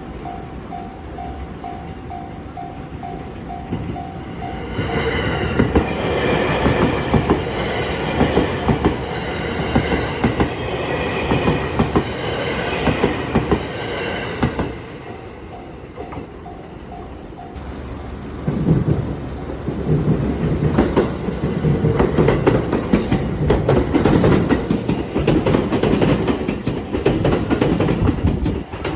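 Japanese level-crossing warning bell ringing in steady pulses, about two a second; about five seconds in, a JR West train passes over the crossing with its wheels clacking over the rail joints. The bell is briefly heard again around fifteen seconds, then a second train passes for the rest.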